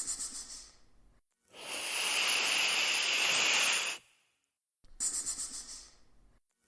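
Snake hissing in repeated breaths of hiss: one trails off in the first second, a long steady hiss runs from about a second and a half to four seconds, and a shorter one comes about five seconds in.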